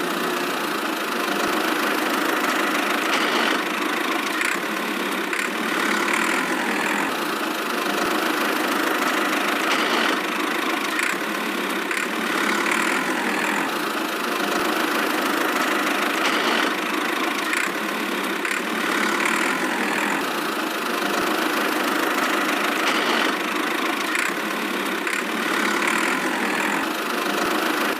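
A small motor running steadily, the drive of a miniature DIY tractor model, with a whirring hum and little low end.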